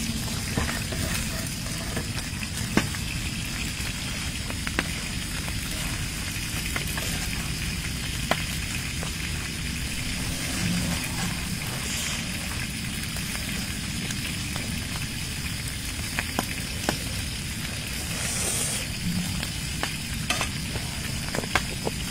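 Close-up eating sounds of grilled meat being chewed: a steady crackly hiss with scattered sharp clicks and smacks.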